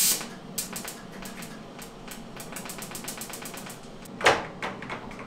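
Electric arc welding of a steel rod onto a gas-turbine shaft: the arc crackles in a quick run of sharp ticks, with a louder burst at the start and another about four seconds in.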